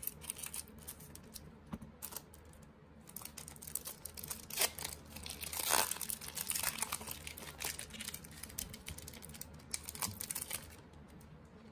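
Foil trading-card pack wrapper crinkling and rustling as a pack is handled and torn open, in quick irregular crackles that are loudest around the middle.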